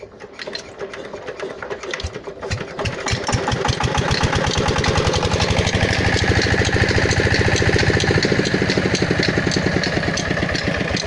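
23 hp diesel engine driving a water pump, starting up: its firing beats quicken and grow louder over the first few seconds, then it runs at a steady, fast, even beat.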